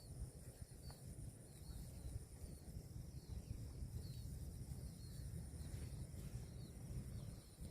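Quiet rural outdoor ambience: a steady low rumble, with faint short high chirps about once or twice a second over a thin steady high insect drone.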